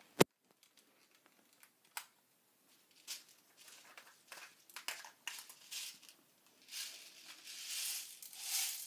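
A clear plastic pellet gun and a bottle of pellets being handled: one sharp plastic click just after the start, then scattered clicks and rustling, which thicken into a steady hissy rattle in the last couple of seconds.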